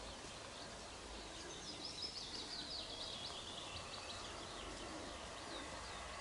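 Faint birdsong: a bird singing a quick string of high chirps and trills in the middle, over steady outdoor background noise.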